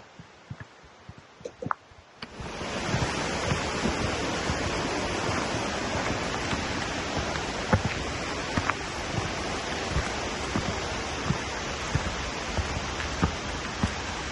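Rushing creek water, a steady roar of white water that comes in abruptly about two seconds in and holds. Light ticks and knocks sound before and through it.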